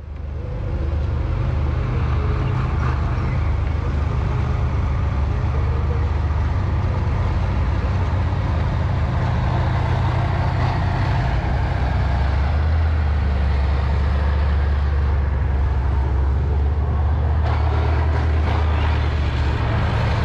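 Heavy vehicle's engine running steadily with a deep, loud low hum and a broad mechanical rush over it.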